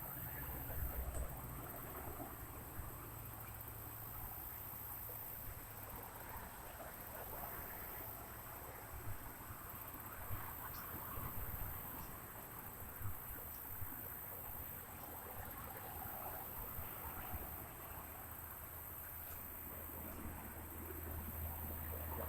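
Insects droning steadily in two high-pitched bands, over a faint uneven rustle and a low rumble.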